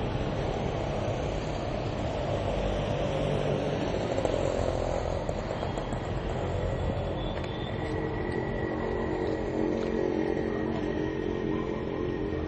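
Steady street traffic noise with a vehicle engine running; a pitched engine note grows clearer in the second half.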